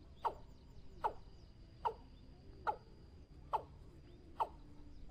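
Watercock calling: a short, falling note repeated evenly, a little more than once a second.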